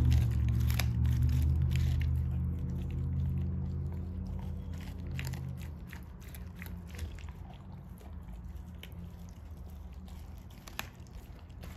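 American bulldog chewing and biting a chunk of raw meat, with many short wet clicks and crunches. A low droning hum is loudest at the start and fades away over the first half.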